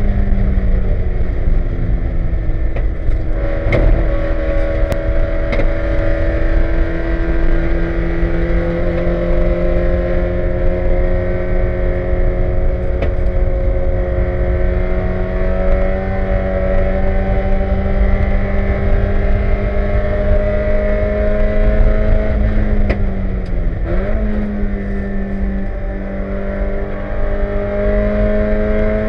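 Spec Miata's four-cylinder engine running hard on track, its pitch climbing slowly, dipping briefly about 23 seconds in and climbing again. Sharp clanks come from the suspension now and then: a lower A-arm left loose after being replaced.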